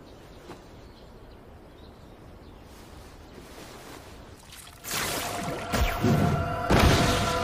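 Faint room tone for about five seconds, then a sudden loud rushing whoosh of an attack, with two heavy hits about a second apart. Sustained music tones come in under the hits near the end.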